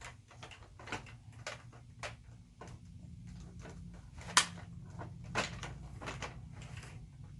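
Scattered clicks and knocks of plastic toys being handled, with one sharp click about four seconds in, over a low steady hum.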